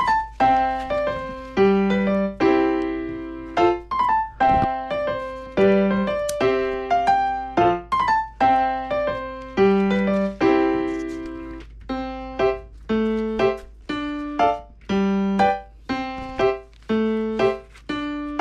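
Background music: a gentle instrumental melody of struck notes that ring and fade, over chords at an even pace.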